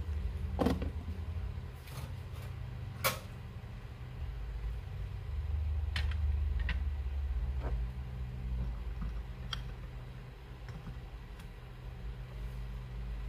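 Several short clinks and knocks of glass shot cups and metal espresso-press parts being set in place on the bases of two Flair manual espresso makers, the sharpest about three seconds in, over a steady low hum.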